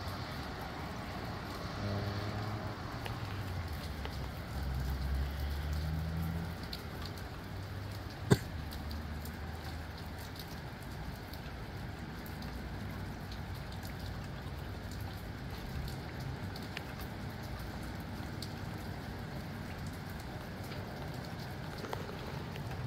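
Steady rain falling. A low rumble comes and goes over the first several seconds, and a single sharp tap about eight seconds in is the loudest sound.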